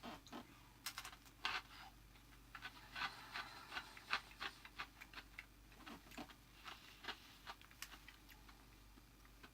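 Someone eating lightly salted pretzel sticks: faint, irregular crisp crunches and clicks as the sticks are bitten and chewed.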